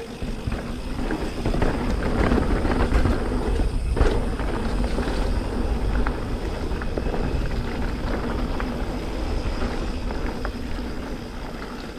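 Wind buffeting the microphone of a moving mountain bike, a steady low rumble with tyre rolling noise and scattered small rattles and clicks.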